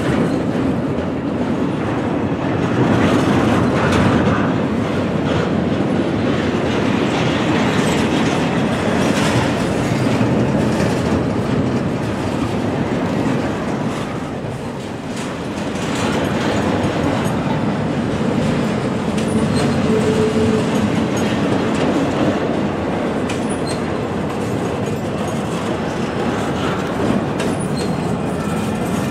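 Intermodal freight train's container and trailer cars rolling past: steady wheel and rail noise with clickety-clack over the rail joints, and a brief squeal about twenty seconds in.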